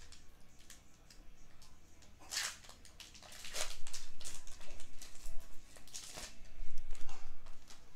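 Crinkling of a foil Pokémon Chilling Reign booster pack wrapper and rustling of trading cards being handled. It comes in irregular short bursts, louder from about two seconds in.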